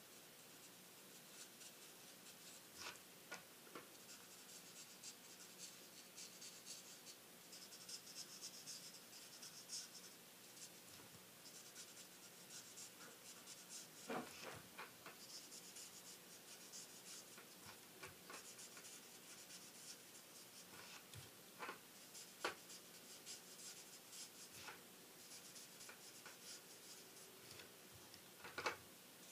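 Marker nib scratching faintly over stamped cardstock in stretches of short colouring strokes, with a few soft knocks as the hand and pen touch down.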